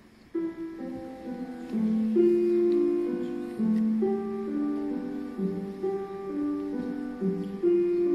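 Slow, soft instrumental keyboard music that comes in suddenly about half a second in, its held notes stepping through a gentle melody over low chords.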